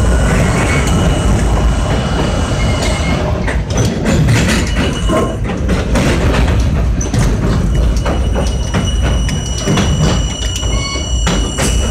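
R32 subway car running along elevated track, heard from inside the front car: a steady low rumble, with rapid clicking and clattering of the wheels over rail joints and switches from about three seconds in, and thin high squeals over it.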